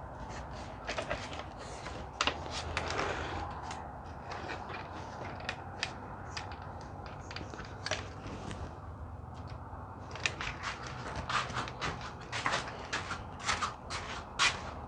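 Handling noise: scattered clicks, knocks and creaks of objects being moved about, growing busier and louder for the last few seconds.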